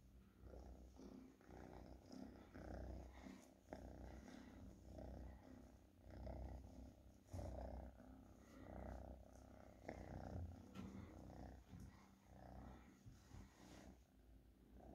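Domestic cat purring softly and continuously, the purr swelling and fading roughly once a second with each breath in and out.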